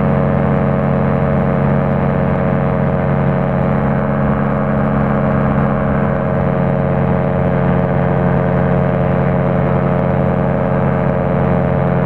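Rotax 503 two-stroke twin engine of an Excalibur light aircraft running at a steady, unchanging power setting, a constant engine-and-propeller drone.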